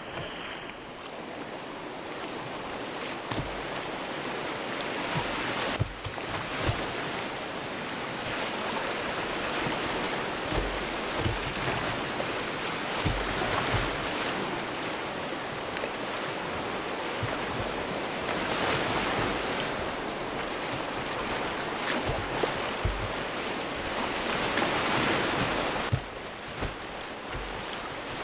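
Whitewater rapids rushing and splashing around a kayak, with water breaking over the bow and scattered brief low thumps. The rush grows louder through the middle and drops off suddenly near the end.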